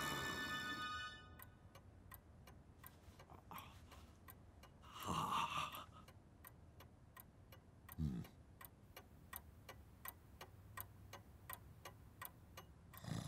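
A clock ticking steadily, about two ticks a second. A held musical chord fades out during the first second.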